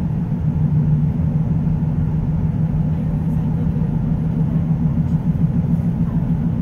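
Steady low drone of road and engine noise heard from inside a moving car's cabin.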